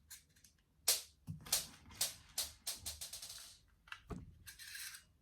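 Sharp plastic clicks and knocks, with two short rattles, from handling a plastic spring-powered toy airsoft rifle while pressing its loading button and putting 6 mm BBs in.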